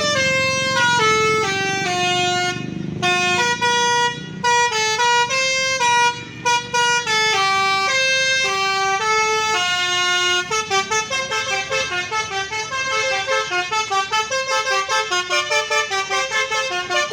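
Indonesian telolet bus horn playing a tune of clear stepped notes, mostly descending runs. About ten seconds in it switches to quick staccato toots, several a second.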